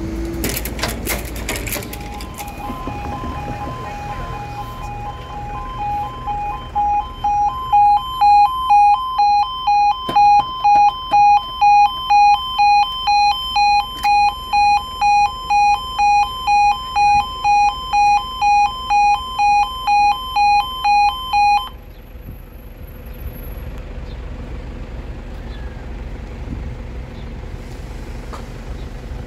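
Level crossing warning alarm: an electronic two-tone yodel that sounds steadily at first, then pulses at about one and a half beats a second, and cuts off suddenly about 22 seconds in.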